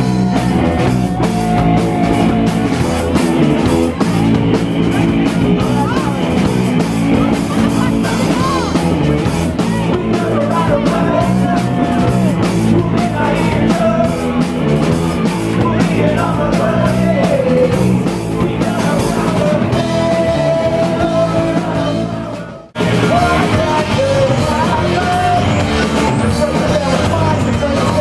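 Live rock band playing, with electric guitar, bass guitar, drums and keyboard under sung vocals. About three-quarters of the way through the sound drops out for a moment and then comes straight back.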